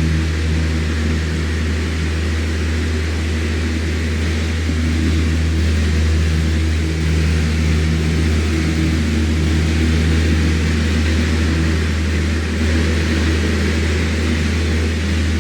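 Electric fan running steadily: a low motor hum under an even rush of air.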